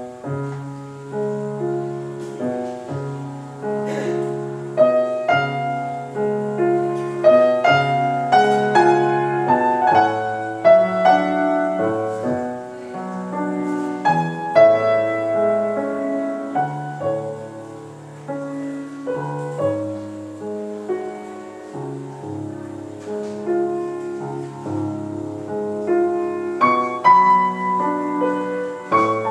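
Solo grand piano starting a classical piece from quiet, with a moving bass line under sustained chords and melody.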